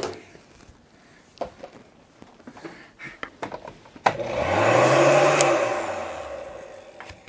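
A large electric heat gun switched on with a click about four seconds in: its fan whirs up in pitch with a rush of blowing air, then it is switched off and winds down over about two seconds. Before that, light clicks of tools and wires being handled.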